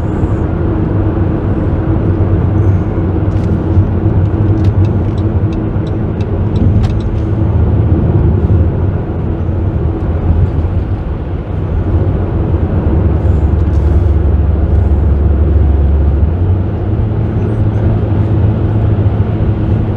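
Steady road and engine drone of a minivan at highway speed, heard from inside the cabin: a deep, even rumble with a few light ticks in the first several seconds.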